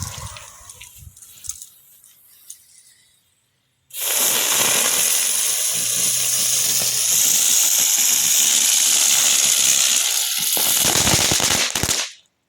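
Ground bloom firework with crackles going off: a loud, steady high-pitched hiss as it spins, with dense crackling pops all through it, starting suddenly about four seconds in and cutting off abruptly near the end.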